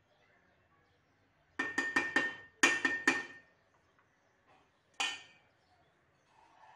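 Metal perforated spoon knocking against the side of an aluminium pressure cooker: two quick runs of ringing clanks about two and three seconds in, then a single clank about five seconds in.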